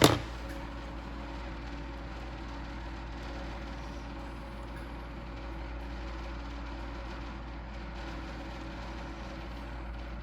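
A sharp knock right at the start, then a steady low background hum with a few faint steady tones running under it.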